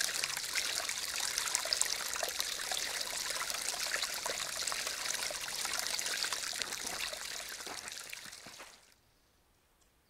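A small, shallow forest brook trickling and splashing over stones and leaf litter, a dense patter of tiny droplet splashes. It fades out near the end, leaving near silence.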